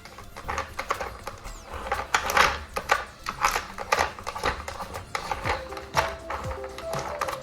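Plastic dog treat puzzle toy (Dog Worker Spin, Scoot and Treat) clattering as a puppy paws and noses its sliding and spinning pieces to get at the treats. The clicks and knocks are irregular, several a second.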